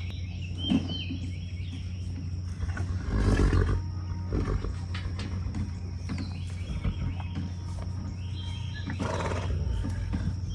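Horses nickering twice, low rumbling calls about three seconds in and again near the end, with birds chirping.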